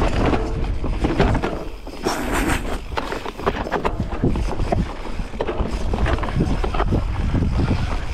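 Mountain bike riding fast down a dirt downhill trail: tyres rumbling over the loose dirt, with frequent knocks and rattles from the bike over bumps and wind buffeting the microphone.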